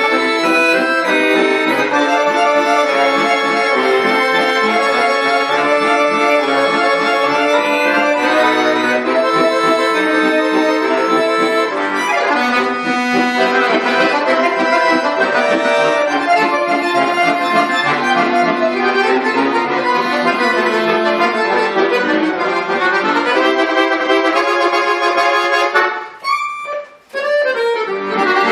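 A bayan (Russian chromatic button accordion) playing a piece in full sustained chords under a moving melody. The music breaks off briefly near the end, then resumes.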